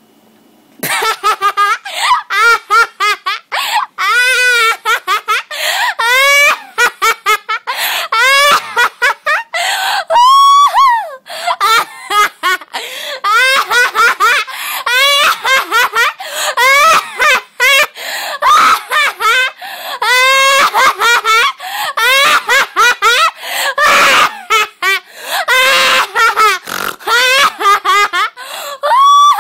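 A girl laughing loudly and without a break, a long run of rapid high-pitched ha-ha bursts starting about a second in. It is laughter put on deliberately, on cue, as her turn in a laughing contest.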